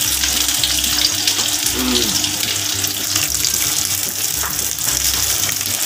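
Food frying in oil in a frying pan, a steady sizzling hiss, with faint ticks as wooden chopsticks turn the pieces.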